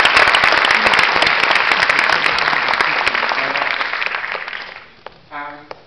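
A theatre audience applauding, a dense crackle of many hands clapping that fades out about five seconds in.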